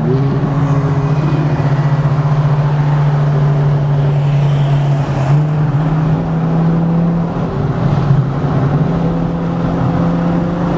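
Car engine running at steady revs, a low drone that drops in pitch at the start and rises again about five seconds in.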